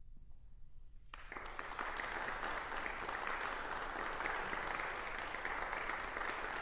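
Audience applause breaking out about a second in and continuing steadily, a dense patter of many hands clapping.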